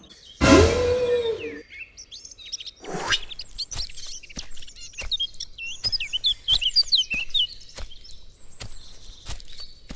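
Birds chirping and twittering as a backdrop, with regular soft knocks about twice a second. A loud, short noisy burst with a wavering tone comes about half a second in.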